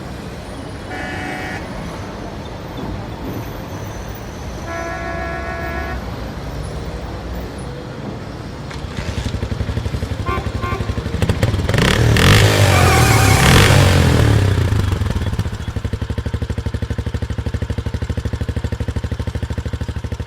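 Road traffic: a vehicle horn toots briefly three times, then a small vehicle engine runs close by with a rapid pulse. It gets loudest with a rush of noise in the middle, then runs on steadily.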